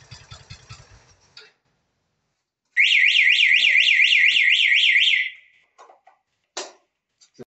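Motorcycle engine idling, then cut off about a second in by the remote. After a short pause, the bike's home-built anti-theft alarm gives a loud electronic siren warble, rising and falling about five times a second for roughly two and a half seconds, followed by a few short clicks.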